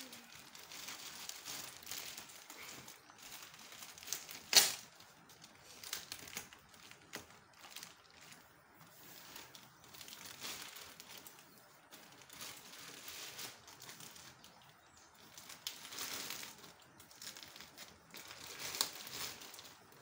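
Plastic wrapping on a large flat package crinkling and rustling as it is pulled and torn off by hand, in irregular spells, with one sharp, loud crack about four and a half seconds in.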